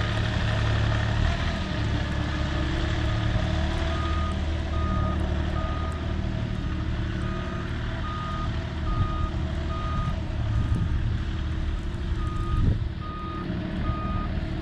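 A vehicle's engine running steadily while its reversing alarm beeps. The alarm is one high tone, about three beeps every two seconds, starting a few seconds in, pausing briefly and then resuming near the end.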